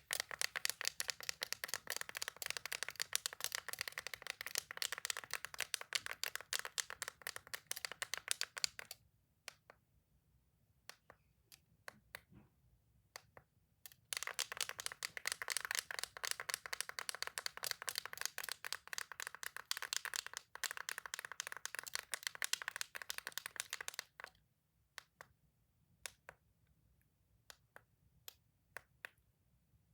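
Toys being clicked in quick, dense runs of sharp clicks, about nine seconds at first and again for about ten seconds from the middle on, with only scattered single clicks in between and near the end.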